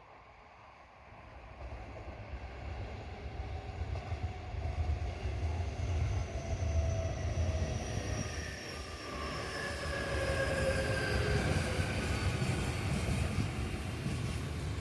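Electric multiple-unit train passing through a station without stopping: a low rumble of wheels on rail builds from about a second in and stays loud, with several motor whine tones that slowly fall in pitch as it goes by.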